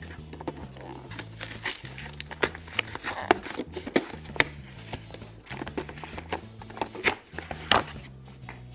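Toy packaging crinkling and crackling as it is opened by hand, with irregular sharp clicks and snaps, loudest a few times in the middle and near the end, over soft background music.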